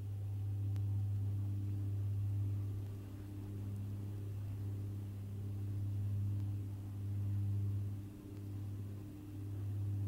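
Steady low hum with a couple of faint higher overtones, swelling and fading every second or two.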